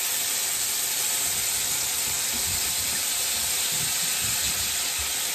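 Beef burger patties and red onion slices sizzling steadily in a hot frying pan, with balsamic vinegar just poured over the onions. A few faint low knocks come in the middle as a spoon moves the onion slices.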